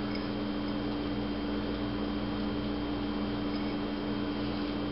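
Steady low hum with an even background hiss: room tone, with no distinct events.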